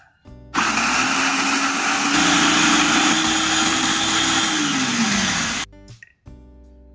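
Small electric food chopper running, its blades grinding red chillies, bird's-eye chillies, garlic and shallots into a coarse paste. It starts about half a second in, runs steadily for about five seconds, and its motor note drops as it winds down.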